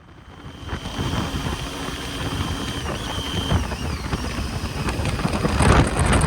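Triumph Tiger 800 XC three-cylinder motorcycle being ridden, its engine running under wind noise on the microphone, fading in from silence and getting louder.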